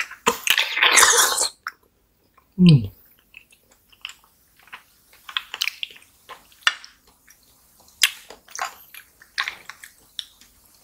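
Wet mouth sounds of soft jelly and pudding being eaten: scattered small clicks, smacks and squelches. Near the start comes a loud rustling burst from the clip-on microphone, which had come loose, followed by a short low vocal sound that drops in pitch.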